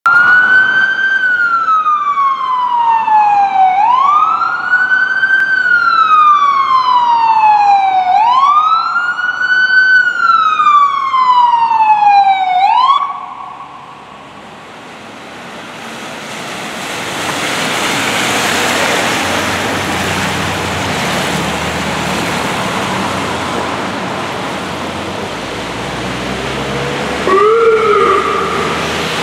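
Emergency-vehicle electronic siren in wail mode, loud, each cycle falling slowly in pitch and sweeping quickly back up, about three cycles before it shuts off about halfway through. Then the noise of vehicle traffic on the wet street swells and fades, with a brief siren blip near the end.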